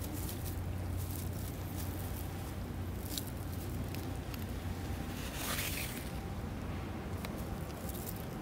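Dry grass rustling and crackling under a raccoon dog as it noses and steps through the thatch while foraging, with a louder rustle about five and a half seconds in.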